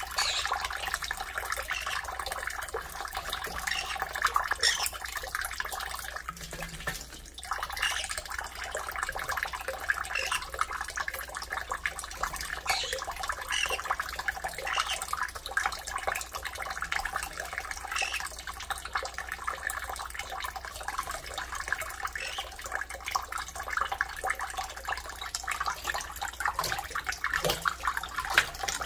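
A kitchen tap running a thin stream into a stainless steel bowl of water in a steel sink, splashing steadily.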